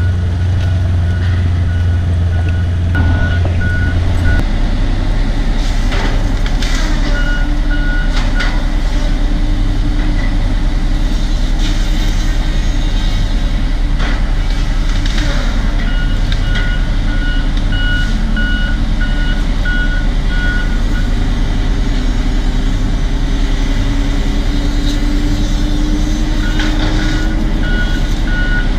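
John Deere bulldozer's diesel engine running steadily under load while it blades the road, its engine note rising slowly near the end. Its backup alarm beeps in several spells as it reverses, with occasional clanks from the machine in between.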